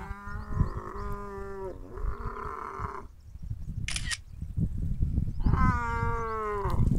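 Dromedary camel cow in labour bellowing while her calf is pulled out: a long, steady call that turns into a rough growl, then after a pause a second long call that falls in pitch at its end. A brief hiss comes about four seconds in, with low rumbling underneath.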